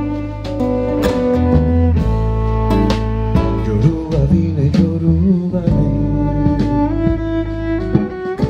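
Live band playing an instrumental passage through a PA: acoustic guitar and bowed cello over bass and drums.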